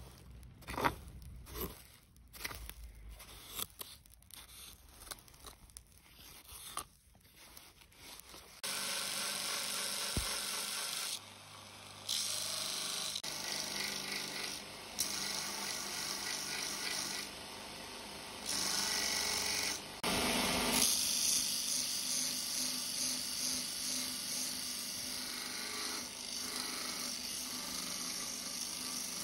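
Irregular crackles and scrapes for the first several seconds, then a belt grinder running with a small metal sword fitting pressed against the moving abrasive belt: a steady grinding hiss that drops off briefly several times as the piece is lifted and repositioned.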